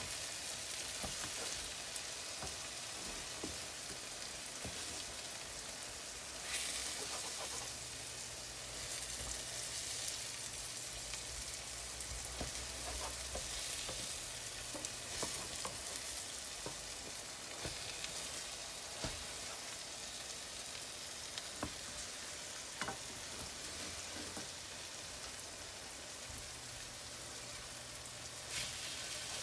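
Egg pancake sizzling steadily in oil in a nonstick frying pan. Scattered clicks and scrapes come from a slotted spatula and a wooden spatula pressing and shifting it in the pan.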